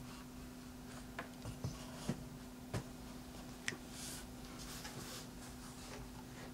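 Faint handling noise of a small quadcopter frame being tilted by hand: about four light clicks and knocks with a little soft rustling, over a steady faint hum.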